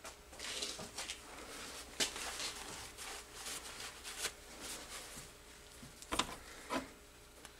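A cloth shop towel rubbing and rustling against a turned steel part held in a stopped lathe chuck. There are a few light metal knocks, one about two seconds in and two more close together near the end.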